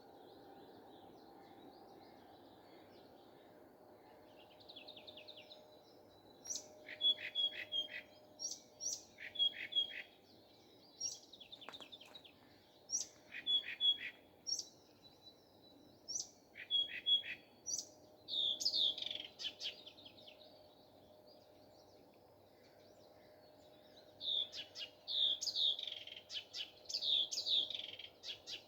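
A nightingale singing: after a few quiet seconds it repeats a phrase of sharp, high notes again and again, pauses, then near the end sings a fast run of falling notes.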